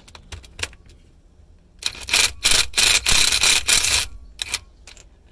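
Ratchet wrench clicking as a spark plug is backed out of the engine's cylinder head: a few single clicks, then a loud run of rapid clicking over about two seconds near the middle.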